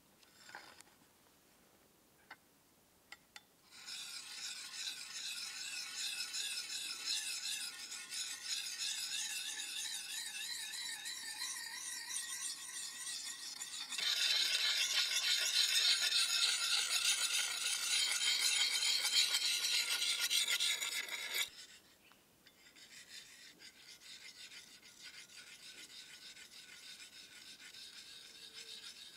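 Steel blade of a vintage cleaver being honed with a round handheld sharpening stone: continuous rapid rubbing strokes that start a few seconds in, get louder about halfway through, then carry on more quietly from about three-quarters of the way in.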